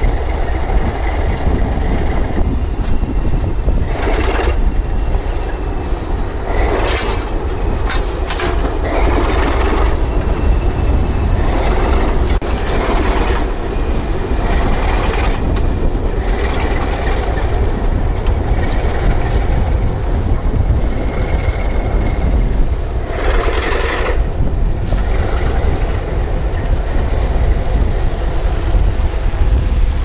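Train led by ALCO RS11 and RS32 diesel locomotives running by, with a steady low rumble and several brief louder noises in the first third and again about three quarters of the way through.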